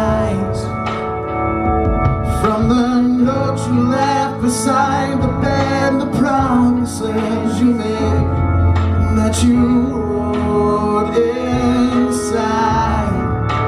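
Live rock band playing a song: electric guitar, drums and keyboard under a male lead vocal.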